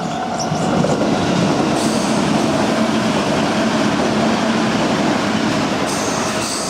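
Nambu Line electric commuter train passing over a level crossing at close range: a loud, steady rumble of wheels on rail, with higher squealing tones coming in about two seconds in and again near the end.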